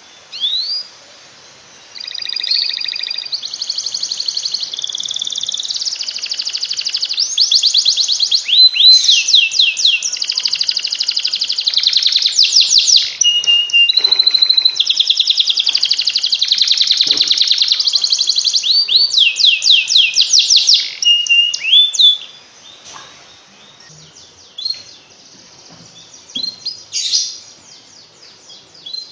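Canary singing a long, loud song of fast rolling trills and repeated rising notes, opening with a couple of quick upward chirps. The song stops about 22 seconds in, leaving only scattered short chirps.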